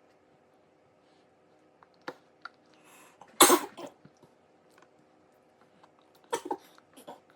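A toddler coughing twice, a short loud cough about three and a half seconds in and a second, double cough about six seconds in, with a few light clicks in between.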